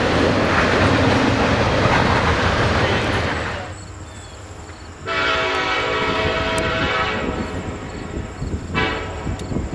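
Intermodal freight train rolling past with a steady rumble of wheels and cars. About halfway through, the air horn of an approaching Norfolk Southern SD70ACe locomotive sounds one long blast, then a short blast near the end.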